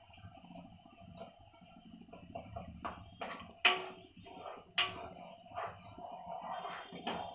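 A spatula stirs melting jaggery in a nonstick pan, scraping and knocking against the pan. A few sharp knocks fall in the middle, the two loudest about a second apart.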